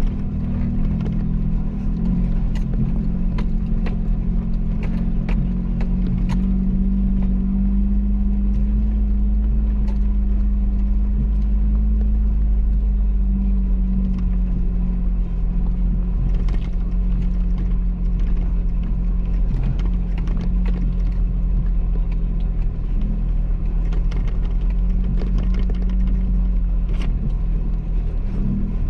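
Off-road vehicle's engine running steadily under way, with a heavy low rumble and scattered knocks and rattles from the rough ground.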